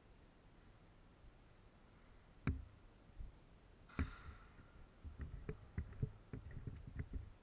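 Two sharp knocks about a second and a half apart, the second with a brief ringing tone, then quick irregular footfalls on a concrete floor as the player runs.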